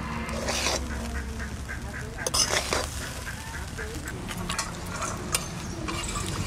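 Ducks quacking in the background in short runs of calls, while a metal spatula scrapes and knocks against a steel kadai of cooked rice. The spatula clatters are loudest about two and a half seconds in.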